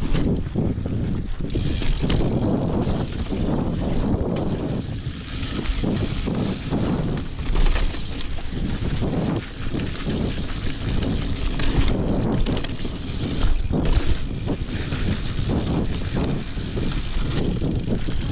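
Mountain bike riding a rough dirt and rock trail: tyres rumbling over the ground and the bike rattling with frequent knocks, under steady wind noise on the microphone.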